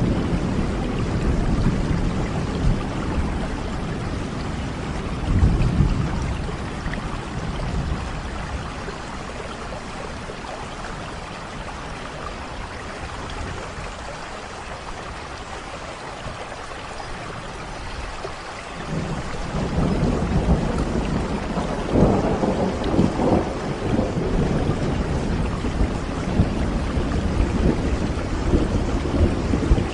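Steady rain with rolling thunder. Low thunder rumbles in the first few seconds, dies down through a quieter middle stretch, and builds again about two-thirds of the way through, with rumbling surges to the end.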